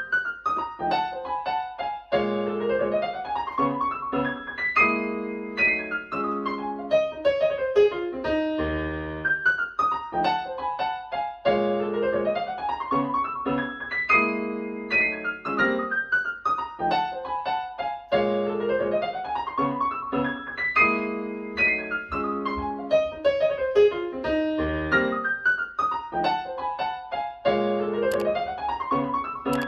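Solo piano music played back on KEF LSX wireless speakers: flowing arpeggios that climb and fall over low chords, in a phrase that repeats about every nine to ten seconds.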